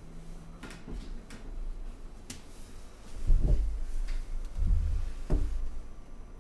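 Handling noise from a handheld microphone and its cable being picked up: a few light clicks and knocks, then three dull low thumps about three, four and a half and five seconds in.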